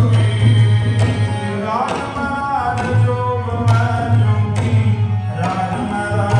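Sikh kirtan: devotional singing accompanied by tabla, over a steady low drone.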